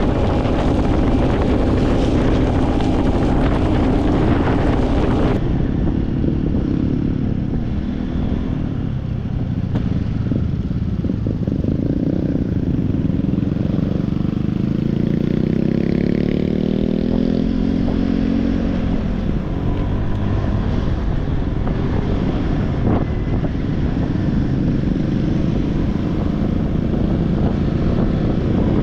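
An engine running steadily, its pitch rising slowly for several seconds around the middle before falling back, with wind buffeting the microphone.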